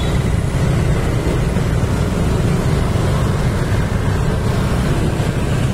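A group of motor scooters on the move, heard from among the pack: a steady low rumble of engines and road noise.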